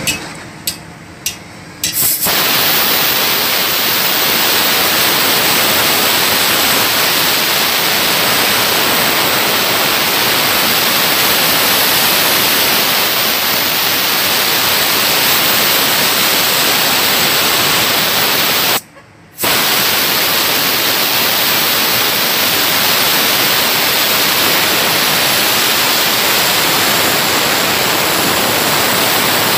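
Compressed-air blow gun hissing into the ports of a ship's diesel cylinder head, to test the intake and exhaust valves for leaks past their seats. It starts with a few short blasts in the first two seconds, then runs as one steady blast that breaks off for about half a second some two-thirds of the way through and starts again.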